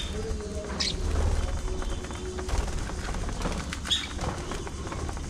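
Budgerigars chirping: a few short, high calls at the start, about a second in and again near four seconds, over a low background rumble.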